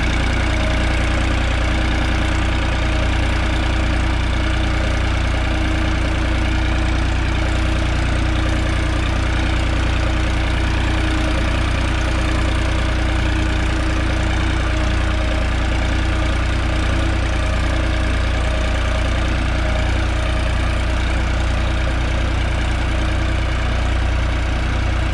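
New Holland 3630 TX Plus tractor's three-cylinder diesel engine running steadily under load as it pulls an 18-disc harrow through tilled soil.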